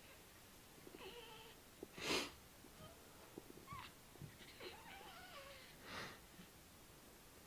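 A baby hiccuping twice, about four seconds apart, the first the louder, with small high squeaks and coos between the hiccups.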